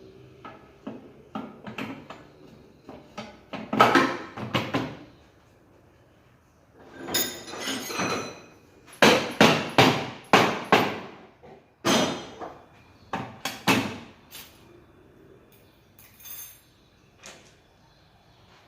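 Metal tools and parts knocking and clanking in irregular clusters. There is a longer scraping sound about seven seconds in and a quick run of about half a dozen strikes around the middle.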